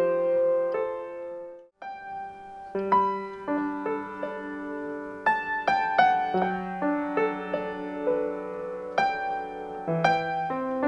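Solo piano playing a slow classical piece, with chords and single notes struck and left to ring. Just under two seconds in, the sound cuts out completely for a moment, then the playing resumes.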